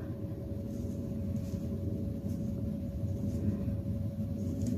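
A steady low rumble of background noise with a faint constant hum tone, and a few faint soft rustles.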